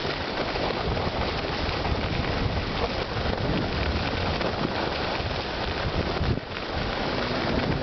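Skis hissing and scraping over packed snow at speed, under wind rushing across the microphone. A steady noise that dips briefly about six seconds in.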